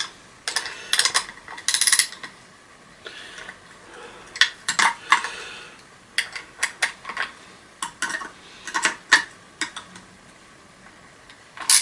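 Metal tool clicking and clinking in short, irregular bursts against an old vacuum cleaner's fittings while trying to turn a stuck fastener that will not budge.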